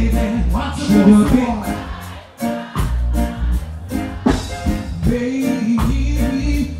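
Live reggae music: a male singer singing into a microphone over a band with heavy bass and a steady drum beat. The music drops out briefly about two and a half seconds in, then the bass comes back in.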